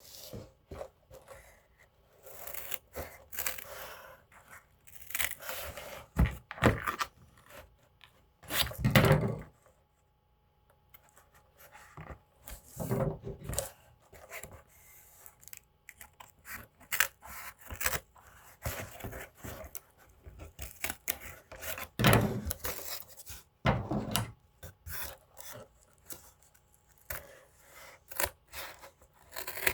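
Hand-work handling noise: irregular scraping, rustling and tearing-like sounds broken by sharp clicks, with louder knocks about nine seconds in and again about twenty-two seconds in.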